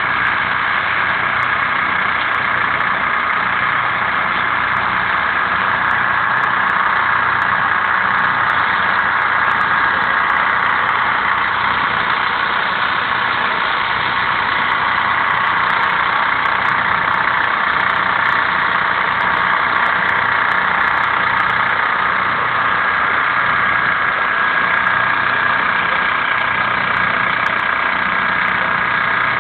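An engine running steadily at an even speed, with a constant high whine over a low pulsing beat.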